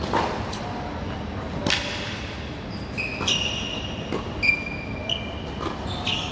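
Tennis rally on a hard court: sharp pops of racket strings striking the ball a few seconds apart, with short high squeaks of tennis shoes on the court surface in between.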